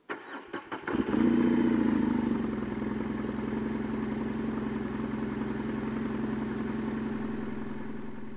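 2017 Suzuki V-Strom DL650's 645 cc V-twin with the stock muffler being started. The starter cranks for about a second, the engine catches and revs briefly, then settles into a steady idle.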